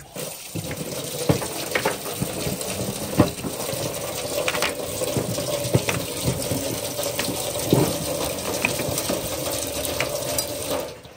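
Tap water running steadily, with scattered sharp knocks and clatters, as mud clams (lokan) are readied for boiling. The water stops abruptly near the end.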